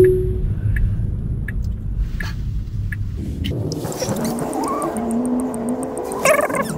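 Low road rumble inside a Tesla Model 3's cabin as it creeps through traffic, opened by a short two-step chime as Full Self-Driving is re-engaged. About three and a half seconds in the rumble drops away, leaving a faint steady tone and some wavering pitched sounds.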